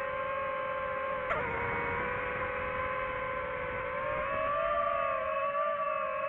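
DJI FPV drone's motors and propellers whining at a steady pitch. The pitch dips sharply and recovers about a second in, then rises a little after about four seconds as the throttle changes.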